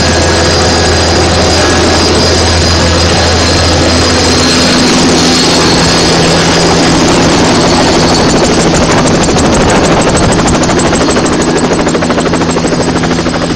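Sikorsky helicopter's turbine engines and rotor running steadily and very loud on the ground just after landing. A low hum drops away about four seconds in, and a higher steady tone carries on under the dense engine noise.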